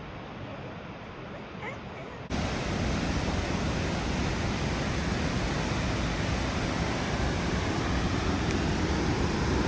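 Steady roar of falling water from High Force waterfall, which jumps suddenly louder about two seconds in and then holds steady.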